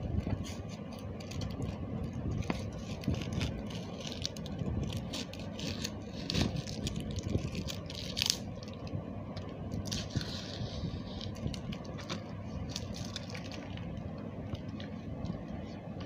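Fingers rubbing and smudging oil pastel on paper: irregular scraping and brushing strokes with scattered small clicks, over a steady low background noise.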